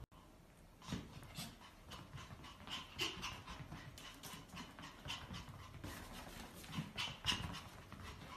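Pomeranian panting, a faint, quick, irregular run of short breaths starting about a second in.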